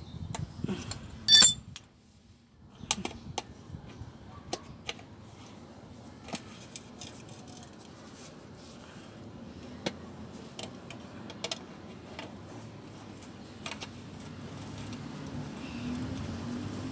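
Steel hand tools clinking on the bolts of a van's clutch housing cover as they are tightened: one loud ringing clink about a second in, then scattered light clicks and taps of wrench and socket on metal.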